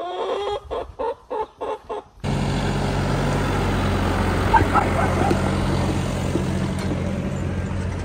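Chickens clucking in quick repeated calls, about three a second. Just over two seconds in, a sudden cut to a John Deere tractor's diesel engine idling steadily, with a few faint clucks over it.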